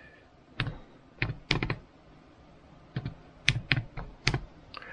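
Keys of a handheld HP calculator being pressed: about a dozen short clicks in uneven groups as a division is keyed in.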